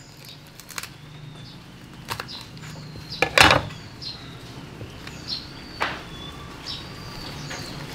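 Scattered knocks and cracks as a roasted pig's head is chopped with a cleaver and pried apart by hand, the loudest crack about three and a half seconds in.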